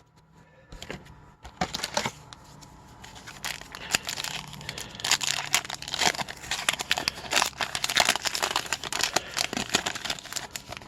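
Plastic hockey card pack wrapper being torn open and crinkled in the hands, a dense crackling rustle that picks up about four seconds in.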